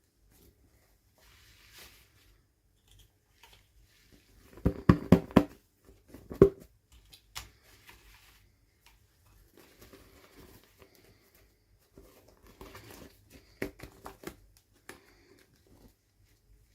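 Packaging being handled and opened by hand: crinkling, tearing and sharp clicks of plastic and paper, in two busy spells, the loudest about a third of the way in and another toward the end.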